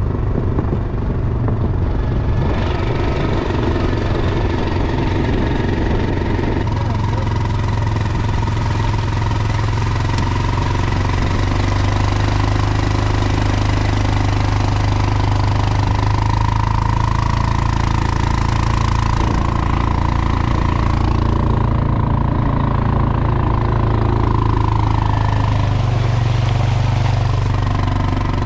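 Quad bike (ATV) engine running steadily as it is ridden, its pitch shifting now and then with speed.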